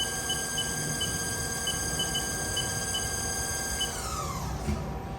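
Haas TL-2 CNC lathe spindle running at 1,000 RPM with a steady electric whine, broken by a series of short high beeps. About four seconds in, the whine glides down in pitch as the spindle changes speed on its way to 2,000 RPM.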